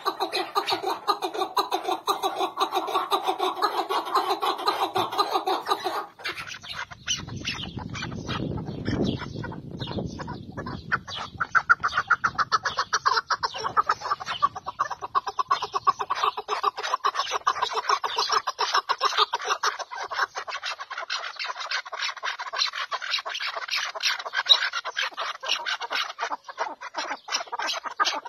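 Chukar partridges calling in rapid, unbroken runs of clucking notes. About six seconds in, the calls turn into a denser, higher chatter, with a low rumble under them for a few seconds.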